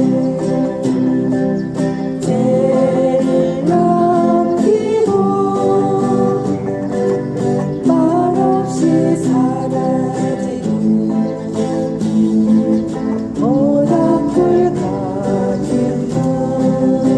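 A voice singing a song over strummed acoustic guitar.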